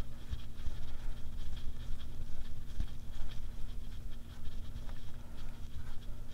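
A nut being threaded by hand onto a Sportster engine's pinion shaft: faint scratching and light metal ticks over low thumps from handling, with a steady low hum throughout.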